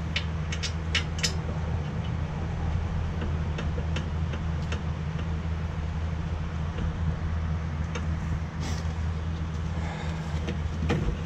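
A steady low hum runs throughout, with scattered light clicks and taps as metal bolts and tools are handled, several of them close together at the start.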